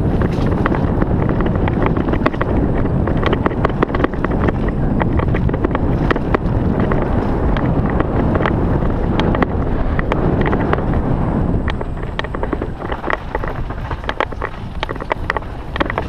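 Wind rushing over a helmet-mounted camera's microphone while a downhill mountain bike rolls fast over a rough dirt trail. Tyres rumble, and there is a steady scatter of sharp rattles and clicks from the bike and stones. It eases a little near the end.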